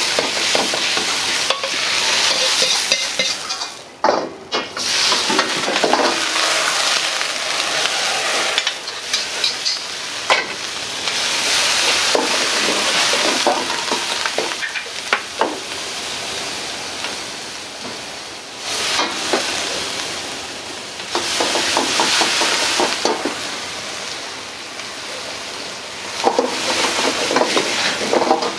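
Food sizzling in a wok while it is stir-fried, with a metal ladle scraping and knocking against the wok many times over the sizzle.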